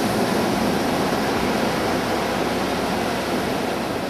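Surf washing onto a pebble beach: a steady rushing noise that eases off slightly near the end.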